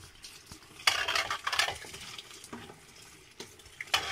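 Wooden spatula stirring and scraping in a non-stick frying pan of eggs cooking in tomato sauce. The loudest scrapes come about a second in, with a sharp knock against the pan near the end.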